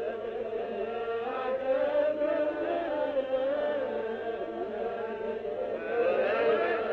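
Ethiopian Orthodox prayer chant sung by a group of voices, the pitches wavering and overlapping. It grows louder about six seconds in, on a muffled old recording.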